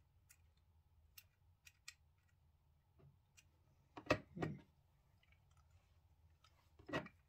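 Small plastic clicks and knocks from a model locomotive being handled and worked on: a scatter of light clicks, then a few louder knocks about four seconds in and another near the end.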